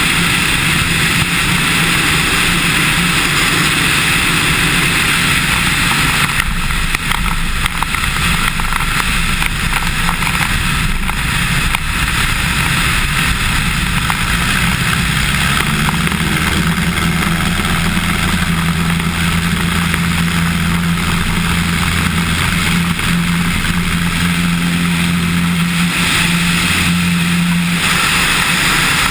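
Cessna 150's four-cylinder Continental O-200 engine and propeller droning steadily, with air rushing past the wing-mounted camera. The engine note grows stronger a little past halfway.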